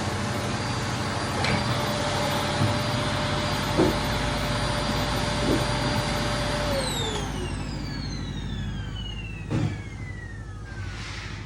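Vacuum cleaner motor running with a steady whine, then switched off about two-thirds of the way through, its whine falling in pitch as the motor winds down. A few light knocks come during the run, and a sharper thump comes after it stops.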